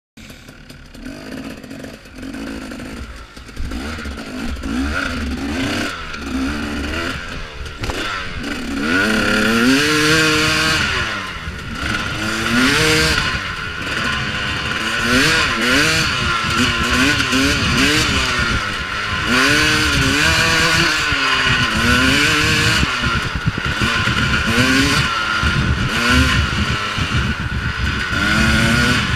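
2014 KTM XC-W 250 two-stroke dirt bike engine revving up and down as it is ridden along a trail, its pitch rising and falling every second or two. It is quieter for the first several seconds and gets louder from about nine seconds in.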